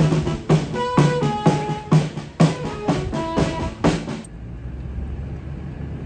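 Background music with a steady drum beat and held melodic notes, cutting off suddenly about four seconds in to a low steady rumble.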